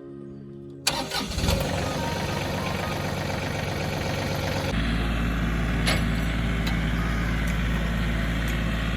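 A John Deere 3032E compact tractor's diesel engine starts up suddenly about a second in and then runs steadily, with a deep low rumble coming in about halfway through.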